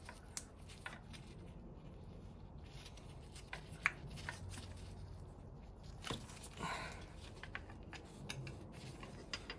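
Small hand tool clicking and scraping irregularly as it works at the hidden 10 mm bolts of an automatic gearbox oil pan, with one sharper click about four seconds in and a short rustle about seven seconds in.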